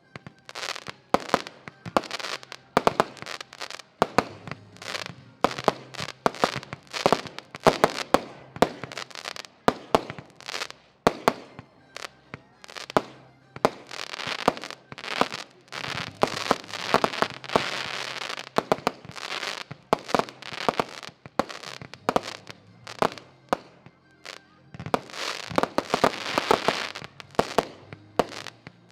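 Weco Maestro 36-shot firework battery firing: a fast run of sharp launch reports and bursts that starts abruptly, with denser crackling clusters around the middle and again near the end.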